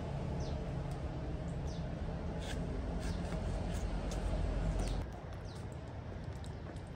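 Small birds chirping in short high calls over a low steady rumble; the rumble drops about five seconds in.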